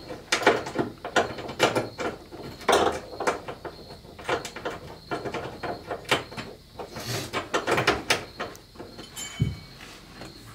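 Repeated sharp clicks and knocks of hand tools and car interior parts being worked, coming irregularly every half-second or so, with a dull thump near the end.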